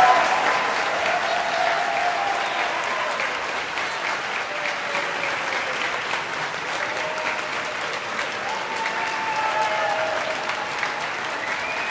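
Concert audience applauding after an orchestral piece ends, the clapping steady, with a few cheering voices rising over it later on.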